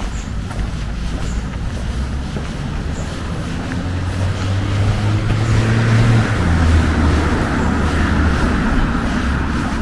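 A motor vehicle driving past, its engine hum and tyre noise swelling to a peak about six seconds in, the engine note dropping in pitch as it goes by, then fading.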